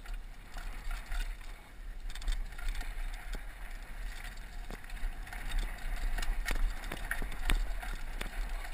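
Downhill mountain bike clattering and rattling over a rough, rocky dirt trail, with frequent sharp knocks from bumps. Wind rumbles steadily on the helmet-mounted microphone.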